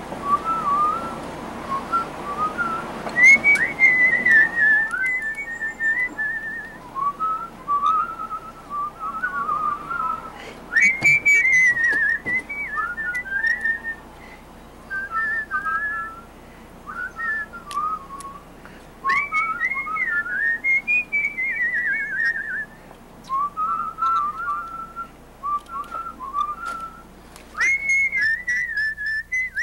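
A person whistling a tune, one clear note at a time in short phrases with brief pauses.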